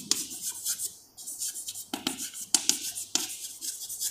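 Chalk writing on a blackboard: a quick, irregular run of short scratches and taps as words are written.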